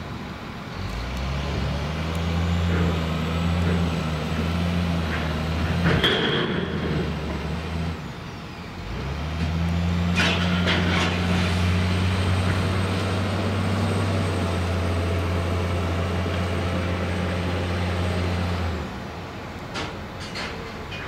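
Side-tipping ballast wagons being unloaded: a low, steady machine hum runs for about seven seconds, stops, then runs again for about ten seconds as the wagon bodies are tipped. A few clanks and a short hiss of air come about six seconds in and again around ten to eleven seconds.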